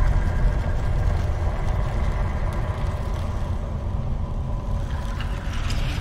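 Ambient background music: a low, steady rumbling drone with faint held tones above it and a brighter hiss swelling near the end.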